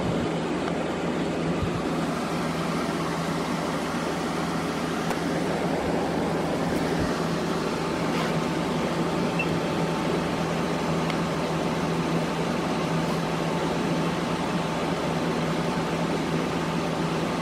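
GE 8,100 BTU air conditioner running steadily: the compressor under load humming low beneath the rush of its fan.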